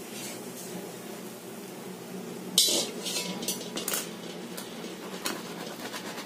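Steel kitchen utensils clanking: one loud clank about two and a half seconds in, as the steel pot is set down after pouring, then a run of lighter metallic clinks.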